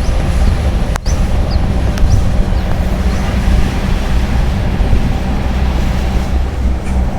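Bus engine running with a steady low drone under road noise, with one sharp click about a second in.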